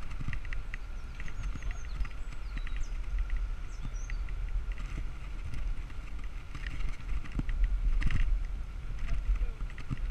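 Wind buffeting the microphone of a bicycle-mounted action camera while riding, a rough low rumble that swells around eight seconds in, with a steady faint whine and light clicking and rattling from the bike.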